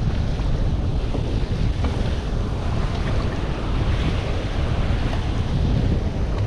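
Strong wind buffeting the microphone in a steady low rumble, over the wash of choppy sea.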